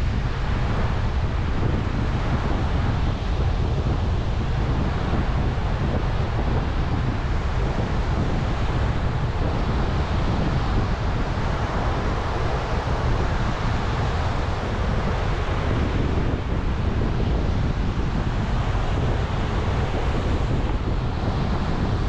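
Strong storm wind buffeting the microphone in a steady, heavy low rumble, over the wash of large waves breaking on a sandy beach.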